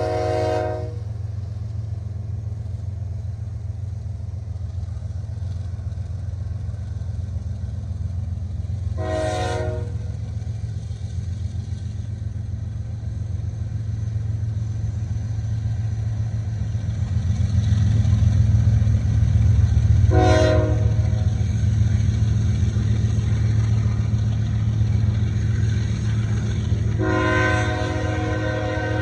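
CN grain train's diesel locomotives rumbling steadily at a slow roll, swelling louder about two-thirds of the way through. The air horn sounds over it in separate blasts: one dying away at the start, a short one about 9 seconds in, another about 20 seconds in, and a longer one starting near the end.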